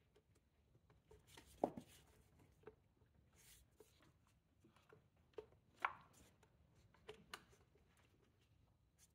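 Faint, scattered clicks and light knocks of hands working a vacuum hose connection and plastic parts in a car's engine bay. Two knocks stand out, one about two seconds in and one about six seconds in.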